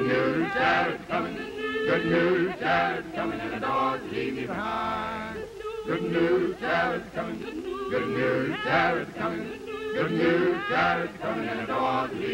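A choir singing unaccompanied, several voices sustaining and changing notes together.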